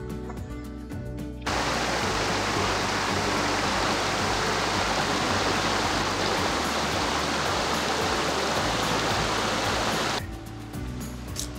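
Small brook rushing over rocks: a steady, loud rush of water that cuts in about a second and a half in and stops abruptly near the end. Background music plays before and after it.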